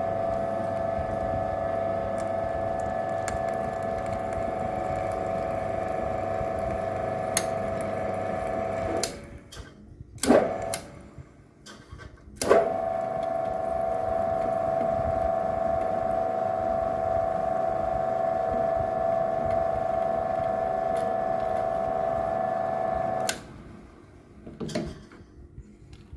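Small benchtop drill press motor running with a steady hum while drilling with a combination tap-and-drill bit. It stops about 9 s in, with a sharp knock a second later. It starts again with a click a couple of seconds after that, runs steadily, and stops again a few seconds before the end, followed by a softer knock.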